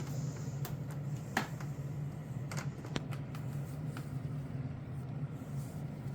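A 1998 Hoover WindTunnel upright vacuum running steadily with a low hum, its motor one that the owner takes for a Maytag unit. A few sharp clicks come through over the first three seconds.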